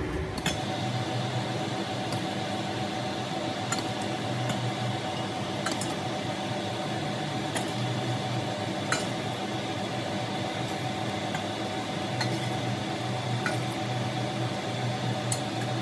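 A metal ladle clinking against a steel pot and a glass bowl as braised pork is scooped from one into the other, in scattered clinks every second or two. A steady hum runs underneath.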